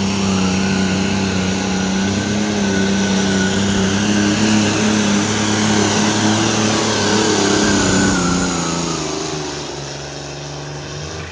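Turbocharged diesel pulling tractor's engine running flat out as it drags a weight-transfer sled down the track, holding a steady high pitch. About nine seconds in the engine backs off and drops to a lower, quieter note as the pull ends.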